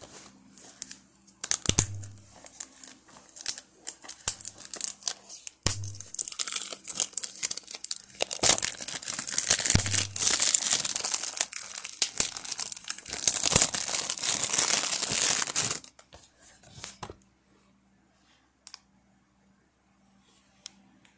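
Clear plastic shrink-wrap being torn and peeled off a DVD case: crackling, crinkling plastic with a few dull bumps of the case being handled, busiest in the second half and stopping about 16 seconds in, followed by a couple of light clicks.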